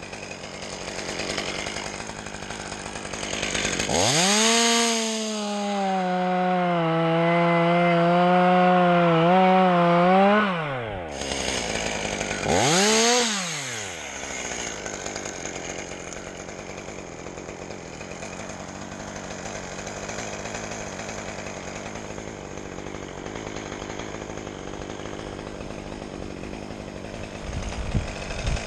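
Two-stroke chainsaw revved to full throttle for about six seconds, its pitch dipping a little while held, then dropping back; a second short rev follows a couple of seconds later, then it runs steadily at a lower level until it revs up again at the very end.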